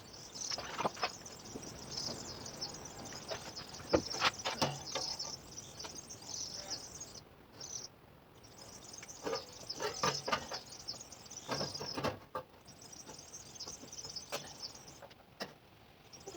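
Irregular knocks and clicks, like wood and tools being handled, over a steady high hiss that breaks off briefly twice.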